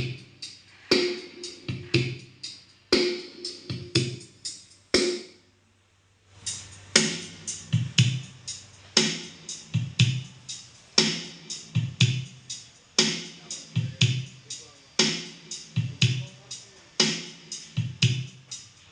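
Electronic dance-remix music with a hard drum-machine beat, played loud through a sound system under test. The beat drops out for about a second around five seconds in, then comes back.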